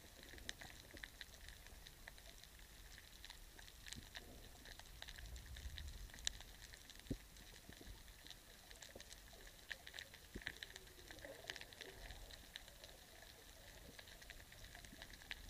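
Faint, irregular crackle of scattered clicks heard underwater, over a low rumble.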